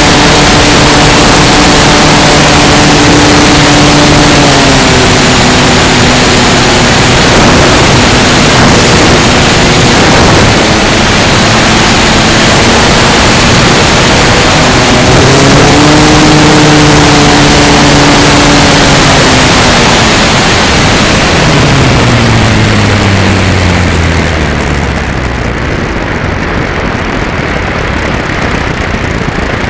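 Electric motor and propeller of an E-flite Carbon-Z Cessna 150 RC plane heard from a camera on board, under heavy wind rush. The motor's pitch drops a few seconds in and rises again near the middle. It then glides down as the throttle comes back, and the noise eases toward the end.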